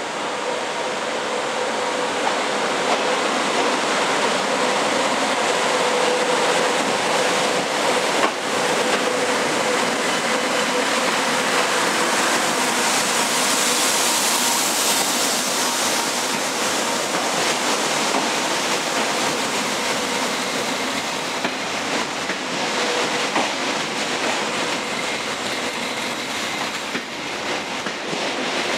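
A TGV Duplex high-speed trainset rolls slowly past at a platform on arrival: a steady rush of rolling and running noise with a faint held hum. One sharp click comes about eight seconds in.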